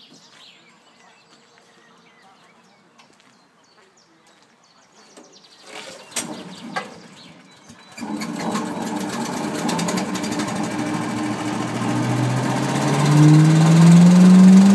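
Engine of a trailer-mounted Votex leaf vacuum being started: a few sharp clanks about six to seven seconds in, then it catches about eight seconds in and runs. Over the last few seconds its pitch rises steadily as it revs up.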